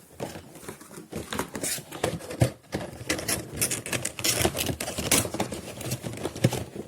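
Quick, busy rustling, tapping and clicking of small objects being handled and set down on a surface by hand.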